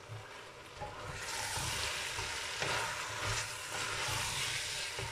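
Cut zucchini being stirred into hot fried masala in a metal pot: sizzling that swells about a second in, with the spatula's repeated strokes against the pot.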